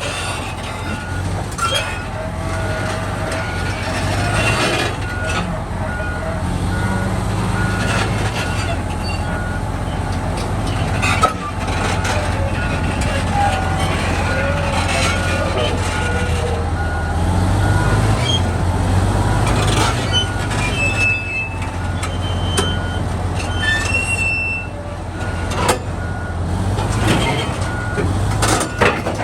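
Heavy diesel machinery running with a steady low engine drone, while a reversing alarm beeps at an even rhythm through most of it.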